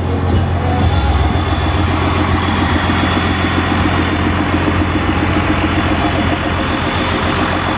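A vehicle's engine idling steadily.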